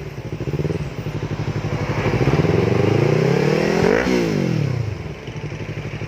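Yamaha R3's parallel-twin engine breathing through an Akrapovic slip-on exhaust, revved while standing. It idles, blips briefly, climbs steadily in revs for about two seconds, then snaps off and falls back to idle about four seconds in.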